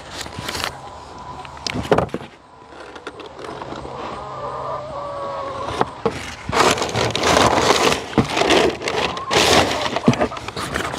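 Packing paper crinkling and rustling as it is pulled out of a cardboard shipping box, with knocks from the box and the wooden parts being handled. The paper rustling starts about six seconds in and is the loudest part; before that come a few separate knocks.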